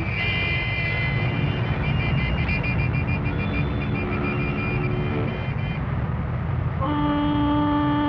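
City traffic: engines and lorries rumbling with repeated car horn toots. About seven seconds in, a long low horn blast starts and holds.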